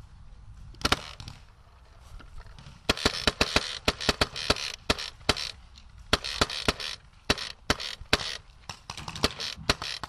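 Paintball markers firing: a single shot about a second in, then quick strings of sharp cracks from about three seconds on.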